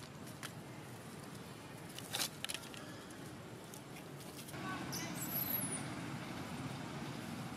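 Steady low rumble of distant road traffic, getting louder a little past halfway, with a few short clicks near the start and a brief high squeak in the middle.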